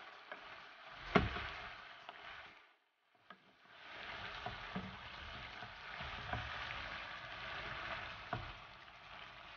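Pork belly and chorizo sizzling as they are sautéed and browned in a nonstick pan, stirred with a wooden spatula that knocks against the pan now and then, the loudest knock about a second in. The sizzling cuts out for a moment around three seconds in.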